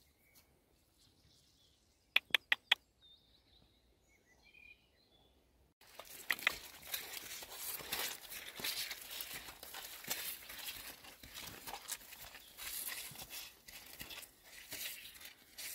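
Near silence broken by four quick clicks and a few faint bird chirps. Then, about six seconds in, a steady crackling patter begins: rain hitting a plastic rain cape and the cape crinkling.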